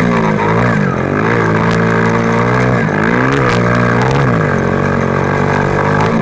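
A 50cc pit bike engine revving up and dropping back several times as the throttle is worked through the track's turns and jumps, heard close from the bike itself, with scattered short knocks.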